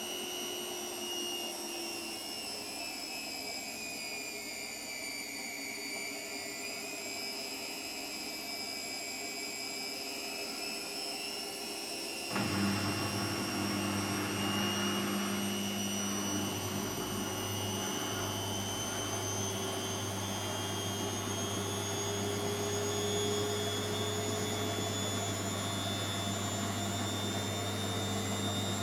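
Hotpoint Extra WMXTF742K washing machine spinning: a motor whine that rises in pitch at first and then keeps creeping slowly higher as the drum gathers speed. About twelve seconds in, a low hum cuts in suddenly and the machine gets a little louder.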